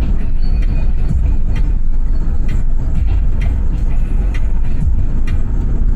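Steady low rumble of road and engine noise from a car driving along, heard from inside the cabin.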